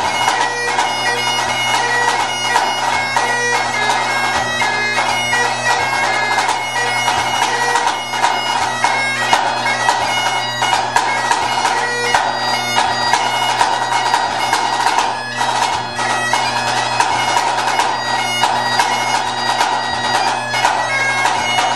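Great Highland bagpipe playing a tune over its steady drones, with a snare drum played alongside in quick, crisp strokes.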